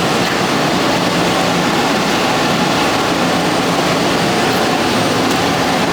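Steady, loud, unbroken machinery noise of boiler-room equipment running.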